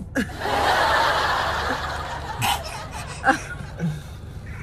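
Breathy snickering laughter: one long breathy laugh lasting about two seconds, then a couple of short bursts.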